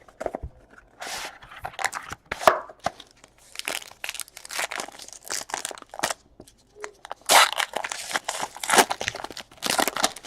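Panini Origins football card box and its wrapping being torn open by hand: irregular bursts of tearing and crinkling packaging.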